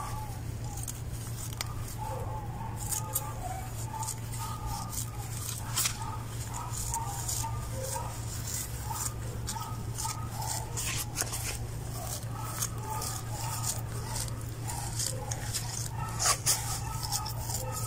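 Garden shears snipping along the edge of a ground-cover mat, with rustling as the plants are pulled loose: scattered sharp snips, the loudest pair near the end. A faint wavering whine comes and goes over a steady low hum.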